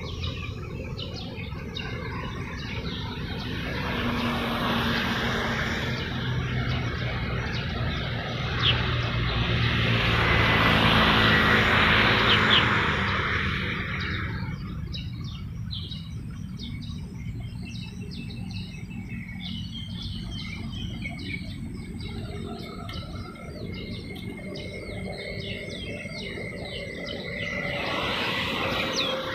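A passing motor vehicle swells up and fades away over about ten seconds, loudest around the middle, with a smaller swell near the end; small birds chirp throughout.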